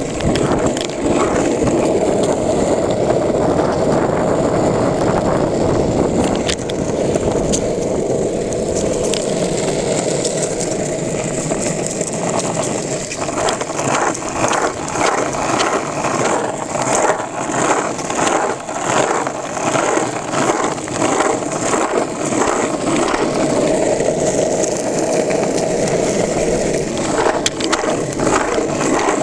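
Longboard wheels rolling on asphalt, a steady rumble, with a run of quick, regular clicks through the middle of the ride.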